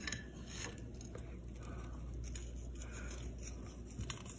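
Faint, soft rustle and a few light ticks of breadcrumb coating being sprinkled by hand onto breaded pork tenderloin cutlets on a platter, over a low steady hum.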